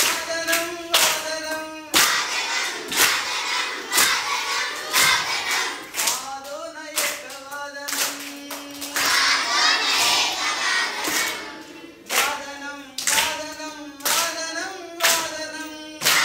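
A class of children singing a Sanskrit song in unison and clapping along about once a second. The clapping drops out for a few seconds past the middle while the singing goes on.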